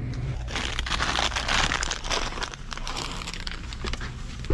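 Crinkling and rustling, densest from about half a second to three seconds in and thinning after, with a single sharp knock at the very end.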